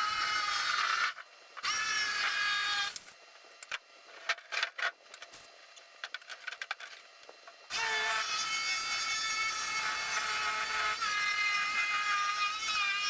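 Greenworks jigsaw cutting a board, its motor running with a steady whine. It stops briefly about a second in and spins back up. It stops again for a few seconds of scattered clicks and knocks before starting up and cutting again.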